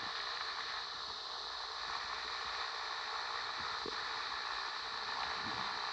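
Steady hiss, with a few faint clicks.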